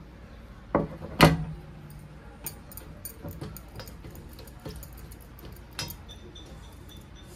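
Dishes and cutlery clinking and tapping as a meal is eaten: two sharp clinks about a second in, the second the loudest and ringing briefly, then a scatter of lighter taps.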